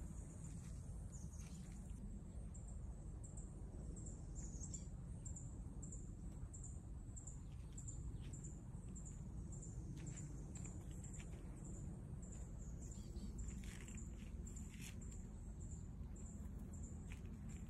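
Outdoor field ambience: a thin, high-pitched chirp repeats evenly about twice a second over a steady low rumble, with a few louder calls near the middle.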